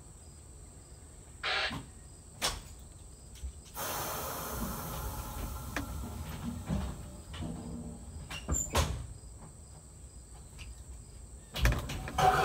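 Scattered knocks and clicks aboard a standing open streetcar, with a few seconds of hiss in the middle and a louder cluster of knocks near the end.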